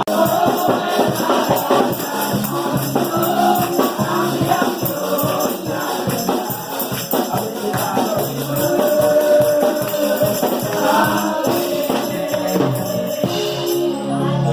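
Church congregation singing a gospel song together, with a tambourine shaken in a steady rhythm.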